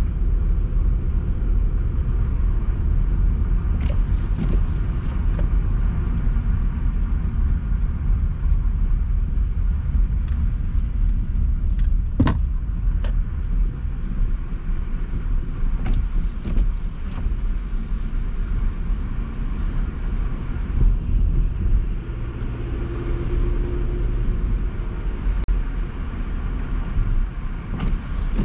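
Car driving: a steady low rumble of engine and road noise, with a few short clicks or knocks, the sharpest about twelve seconds in.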